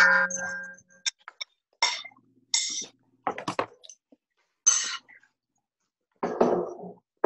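A utensil clinking against a stainless-steel mixing bowl, the bowl ringing briefly, then a series of short scraping strokes as eggs are mixed into a ricotta-and-spinach gnudi mixture.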